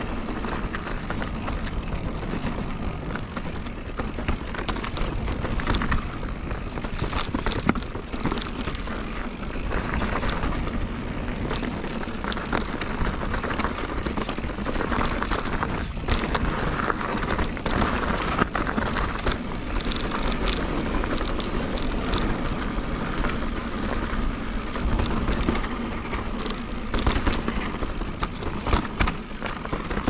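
2021 Giant Reign Advanced Pro 29 full-suspension mountain bike riding down a dry dirt and rock trail: a steady rush of tyre and wind noise, broken by frequent small knocks and rattles as the bike rolls over rocks, heard through a chest-mounted action camera.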